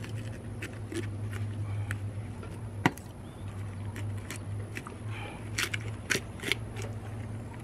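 Knife cutting along the back of a large red drum, scraping through its thick scales and skin in a series of short clicks and scratches, the sharpest about three seconds in and a few more close together about six seconds in. A steady low hum runs underneath.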